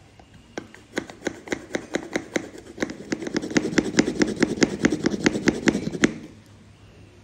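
Plunger of a glass French press pumped rapidly up and down through milk to froth it. The plunger makes a quick rhythmic clacking, about four strokes a second, while the rush of the milk being whipped through the mesh grows louder; it stops suddenly about six seconds in.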